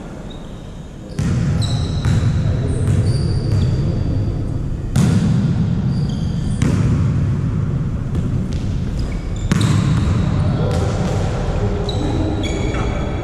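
Volleyball rally sounds in a gym hall: sharp ball hits about a second in and again near five, six and a half and nine and a half seconds, with short high shoe squeaks on the court over a steady low din.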